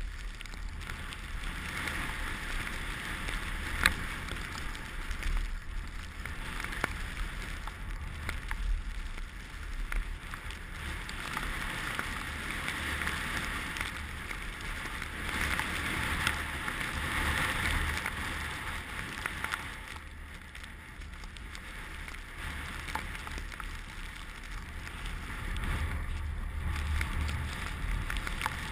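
Steady hiss of skis or a board sliding over snow down a ski run, swelling and easing, with wind rumbling on the microphone.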